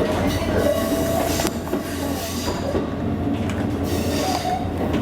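Kakogawa Line electric train running on the rails: a steady low rumble with a thin high squeal from the wheels that wavers slightly.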